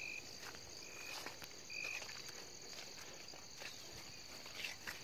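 Steady chorus of insects chirring, with three short high chirps in the first two seconds and a few faint clicks.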